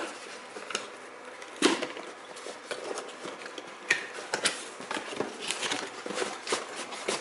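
Cardboard and plastic packaging being handled as a Noctua NH-U12S CPU cooler is worked out of its box: scattered rustles and small clicks, with a sharper knock about a second and a half in and another near the middle.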